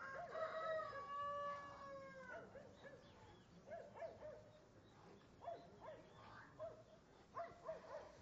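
A rooster crowing once in a long two-part crow that falls slightly at the end, followed by scattered short faint calls.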